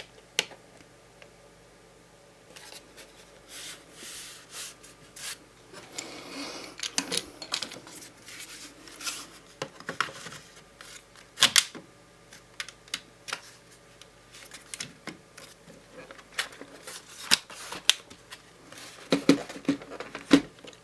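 Irregular clicks and taps on a Lenovo W530 laptop, with a stretch of rubbing about six seconds in and a quick run of louder clicks near the end.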